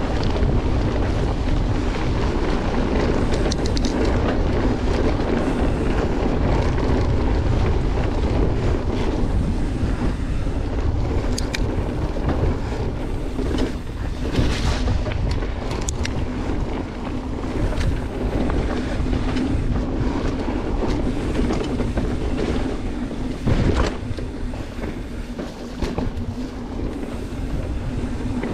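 Wind buffeting the microphone of a camera mounted on a mountain bike rider, over a low rumble of knobbly tyres on a dirt trail. A few sharp knocks come from the bike over the bumps, the loudest about 23 seconds in.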